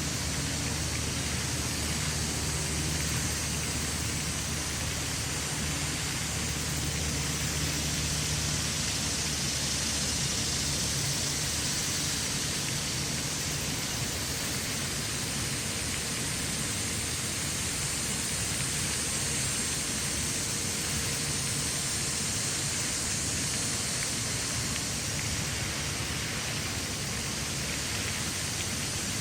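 Steady, even rushing noise, with a low hum underneath for the first half that then fades.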